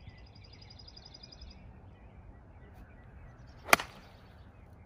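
Golf iron striking a ball off the turf: one sharp crack about three and a half seconds in, hit with a released club face to draw the ball.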